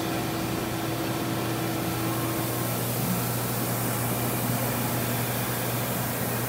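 Steady hum of a powered-up Mazak Integrex 70YB CNC turning center standing idle, with no cutting, under a constant low tone. A higher tone stops about two and a half seconds in.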